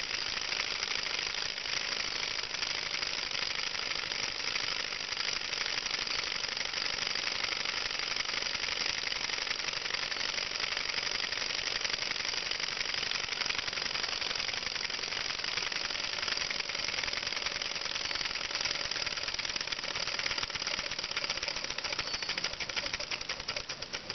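Small model Stirling hot-air engine running fast while driving a small generator motor, its flywheel and crank linkages making a rapid, steady mechanical clatter.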